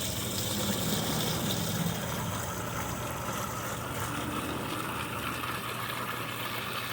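Water running steadily in a garden water feature, with a steady low hum underneath.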